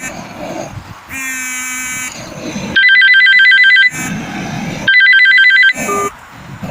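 Electronic telephone ringtone: a warbling trill about a second long, repeated three times, with other short electronic tones between the trills.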